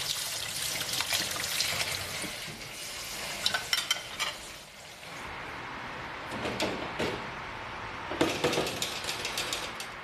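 Kitchen tap running onto wax apples in a plastic colander, a steady hiss for the first half. After that come scattered clicks and knocks of kitchen handling in short clusters.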